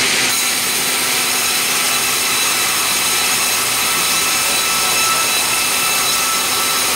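Sawmill saw running and cutting meranti timber: a loud, steady whine over dense mechanical noise.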